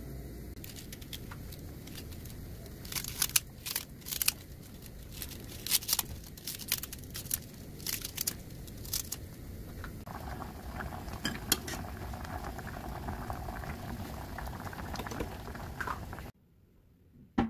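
A utensil clinking and knocking against a saucepan as rice cakes are stirred into sauce, a string of sharp clicks in the first half. After that the sauce bubbles and crackles at a simmer, and the sound cuts off abruptly near the end.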